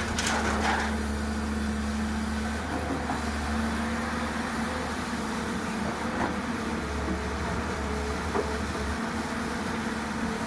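Tata Hitachi excavator's diesel engine running at a steady, even pitch, with a few short knocks in the first second.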